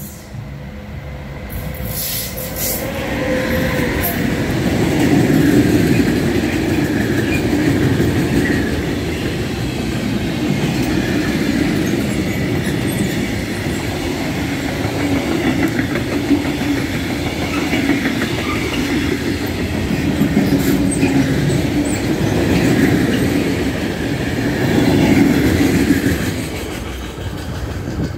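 Electric-hauled freight train of hooded steel-coil wagons passing close by at speed: a steady rumble and rattle of wheels on the rails. It builds over the first few seconds and falls away near the end as the last wagons go by.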